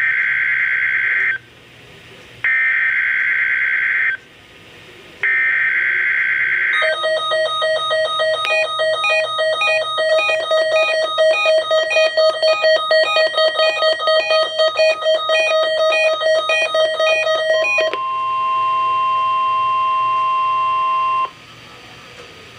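Emergency Alert System test signal on weather radio: three short bursts of warbling digital data tones (the SAME header), then about eleven seconds of a rapidly pulsing electronic alarm beep, then a steady single tone of about 1 kHz for about three seconds, the warning alarm tone.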